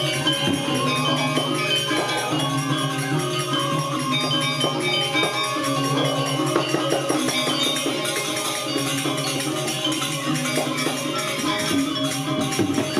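Balinese gamelan ensemble playing: sustained metallic tones under a busy layer of quick percussive strikes, at an even level throughout.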